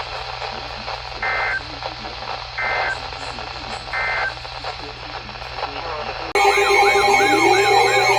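Emergency Alert System broadcast over weather radio. First come three short bursts of the two-tone digital header screech, about a second and a half apart. About six seconds in, a much louder siren-like alert tone cuts in, with steady tones, fast warbles and slow rising wails layered together.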